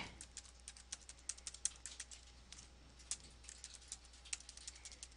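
Computer keyboard being typed on: a run of faint, irregular key clicks, several a second.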